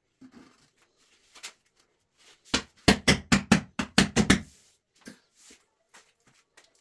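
A quick run of about eight sharp knocks, some four a second, in the middle, with fainter scattered taps before and after.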